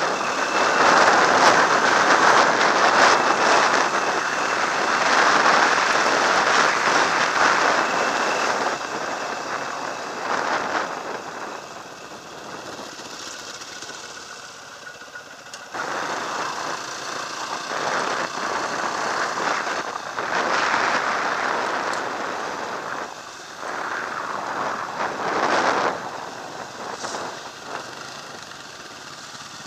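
Dirt bike riding along a dirt road, its engine running under heavy wind noise on the bike-mounted camera's microphone. The sound swells and drops with speed and throttle, fading to a lower rumble for a few seconds before jumping back up about halfway through.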